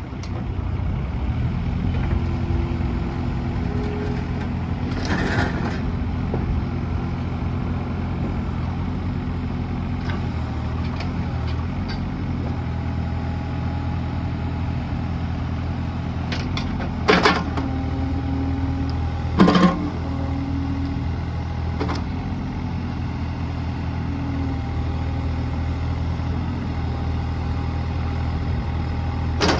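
Komatsu PC30MR-5 mini excavator's Yanmar diesel engine running steadily, picking up about a second in. A few short clanks come through, about five, seventeen and nineteen seconds in.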